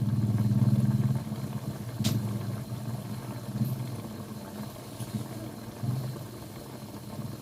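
A motor running steadily with a low hum that eases off after about a second, and a single sharp click about two seconds in.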